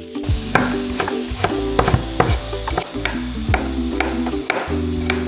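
Potatoes frying in olive oil in a pan, with a utensil knocking and scraping as they are stirred, under background music.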